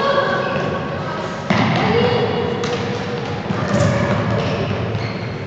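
Futsal ball being kicked and thudding on a wooden sports-hall floor, with a sharp kick about a second and a half in and another soon after, under players' voices echoing in the large hall.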